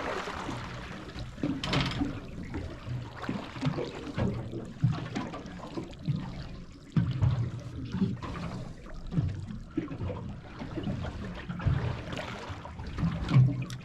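Water lapping and slapping against the hull of a small boat, with irregular low thuds and splashes.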